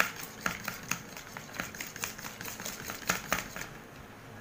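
Eggs being beaten by hand with a utensil in a plastic bowl: quick clicking taps of the utensil against the bowl, about three a second, which stop near the end.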